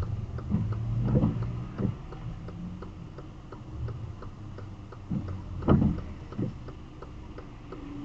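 A car's turn indicator ticking at an even pace inside the cabin while the car waits at a red light, over a low rumble of engine and traffic. A brief louder noise comes about six seconds in.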